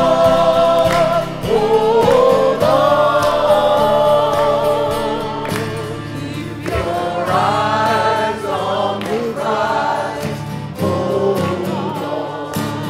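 Music: a choir singing long held notes that waver in pitch.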